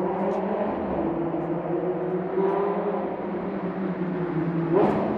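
Car engine idling steadily, a low hum with a slight slow waver in pitch. A short sharp noise comes about five seconds in.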